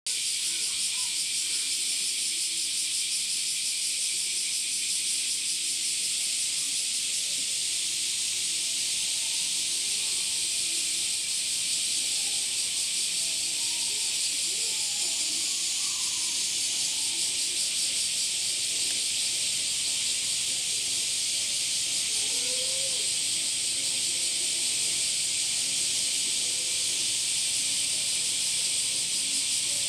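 A steady high-pitched hiss runs on without a break.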